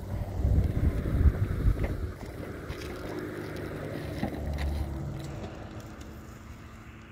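Wind rumbling on the microphone in gusts over a low steady hum; the hum fades after about five seconds and the whole sound grows quieter.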